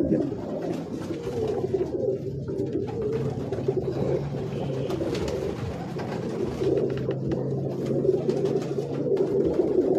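Domestic pigeons cooing: a steady, low, overlapping murmur from several birds.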